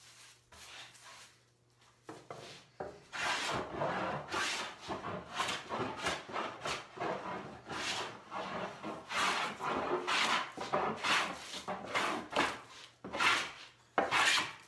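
Scrub plane cutting a walnut board in repeated rasping strokes, about one to two a second, picking up pace about two seconds in. The plane takes shallow passes with the grain to skim the rough surface and reveal the grain.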